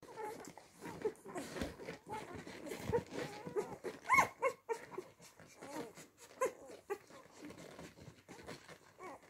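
Week-old Bernese mountain dog puppies nursing on their mother: many short squeaks and whimpers, the loudest a squeal a little after four seconds, among small wet suckling clicks.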